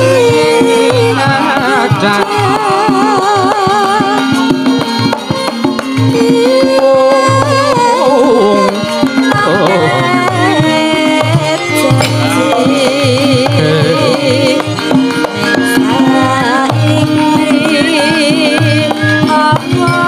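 A Javanese sinden sings a tembang solo through a microphone, her voice wavering with vibrato. A gamelan accompanies her, with steady pitched tones and regular hand-drum (kendang) strokes underneath.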